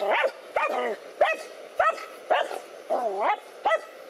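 Dog barking at a cobra, a quick series of sharp barks about two a second, one longer, lower, drawn-out bark about three seconds in.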